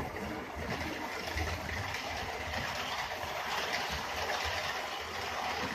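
HO-scale model trains running on the layout's sectional track: a steady whirr of the locomotive motors and the wheels rolling on the rails.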